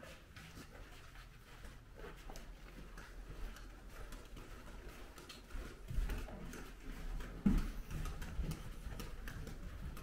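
Footsteps walking along a carpeted hallway: soft low thuds with faint clicks, heavier from about six seconds in.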